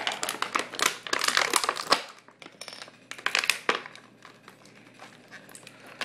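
Action-figure packaging crinkling and rustling as it is handled, in two spells: through the first two seconds and again around three to four seconds in.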